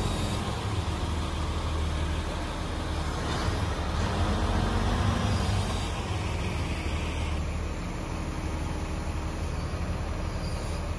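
A mobile crane's diesel engine running steadily with a low, even drone.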